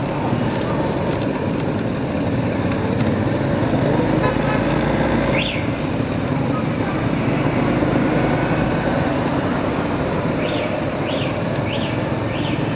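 Motorcycle ride through town traffic: a steady mix of engine and wind noise. A single short high chirp sounds about halfway through, and near the end a run of five quick chirps, each rising and falling in pitch.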